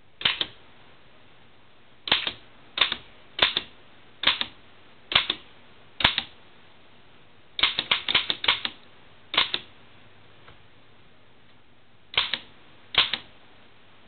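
Oliver No. 9 typewriter being typed on slowly, one key at a time: sharp clacks of the typebars striking the platen, mostly about a second apart, with a quick run of about five strokes around the middle, then a pause and two more strokes near the end.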